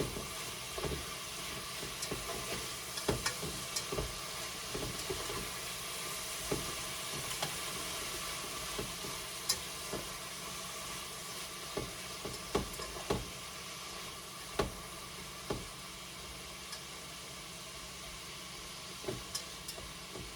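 Shrimp and garlic sizzling in hot oil in a frying pan, with scattered knocks as the pan is stirred.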